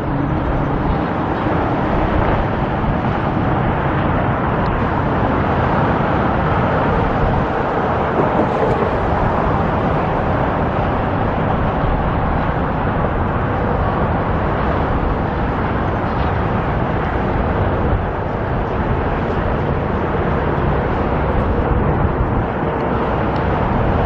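Steady outdoor vehicle noise, an unbroken rush with no pauses.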